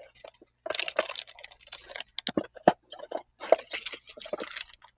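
Clear plastic zip bag of small test-lead adapters crinkling as it is handled, in two spells, with a few sharp clicks between them.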